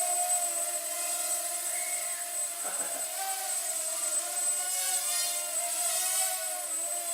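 Mini quadcopter's brushed 8520 motors and propellers buzzing in flight, the pitch wavering up and down as the throttle changes.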